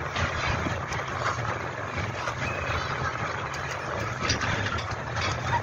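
A heavy engine idling steadily, a low constant hum with no revving.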